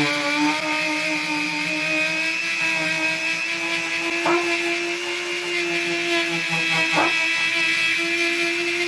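Tacklife rotary tool running at full speed with a sandpaper sanding drum, a steady high whine as it sands a hammer, with two brief sharp scrapes about four and seven seconds in.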